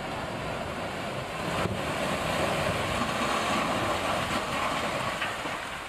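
Landslide on a mountain highway: a continuous rumbling rush of rock and debris falling down the hillside, with one sharper crack a little under two seconds in.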